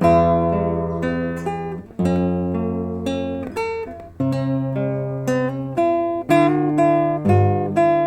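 Acoustic guitar playing a slow ballad melody, single plucked notes and chords ringing out over held bass notes, a new note struck about every half second.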